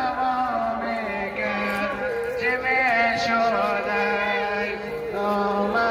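A man chanting an Ashura mourning lament (noha) in long, held, ornamented notes.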